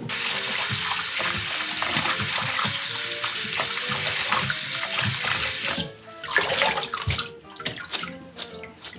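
Water running hard from a tap for about six seconds, then shut off, followed by a few short knocks.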